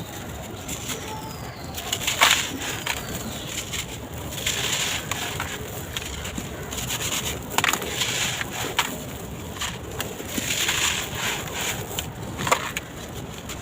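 Dry sand-cement concrete blocks crumbling in a tub: gritty crunching and crackling in separate bursts every few seconds, some with a sharp snap.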